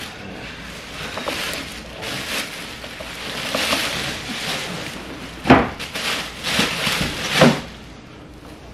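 Plastic wrapping rustling as an upholstered stool seat is lifted out of its cardboard box, with two sharp knocks, one a little past halfway and one near the end.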